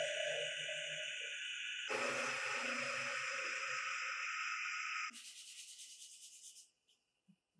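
A drill press runs with a small cutter routing into a wooden block, a steady motor whine with a regular pulse and the hiss of the bit cutting wood, with a brief break about two seconds in. About five seconds in it gives way to hand-sanding wood with sandpaper in quick rubbing strokes, which stop shortly before the end.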